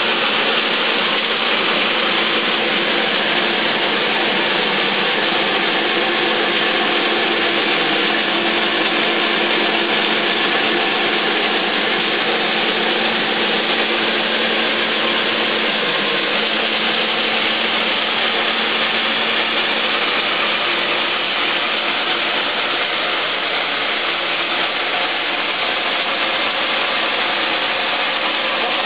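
Electric corn husking machine running, its rollers stripping the husks off ears of corn with a steady, dense mechanical clatter over a faint motor hum.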